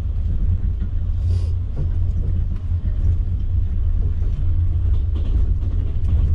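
Steady low rumble of a moving passenger train heard from inside the carriage, with a brief hiss about a second in.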